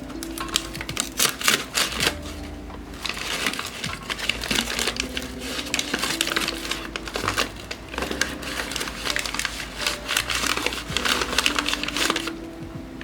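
Rapid clicking and clattering of small hard items being handled, over soft background music with held notes.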